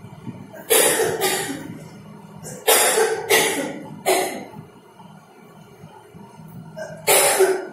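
A woman coughing in a fit: about six separate coughs, mostly in pairs, with a pause of a few seconds before the last one.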